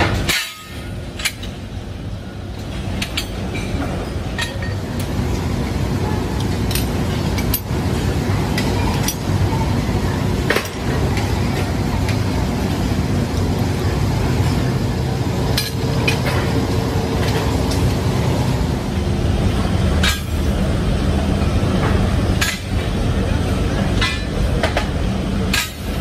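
Steel leaf spring leaves clinking and knocking as they are handled and stacked into spring packs, with scattered sharp metal clicks over a steady low factory machinery hum.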